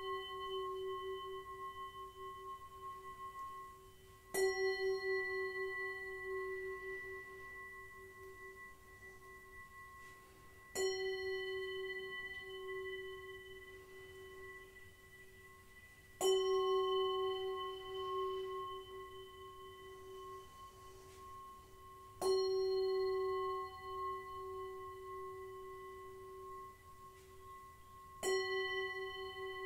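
A Tibetan singing bowl struck five times, about every six seconds. Each strike rings on with a low hum and several higher overtones that waver and slowly fade, still sounding when the next strike lands.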